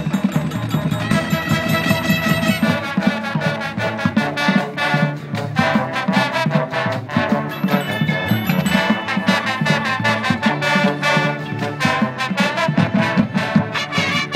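Marching band playing: brass holding chords and melody over a steady beat of drum hits.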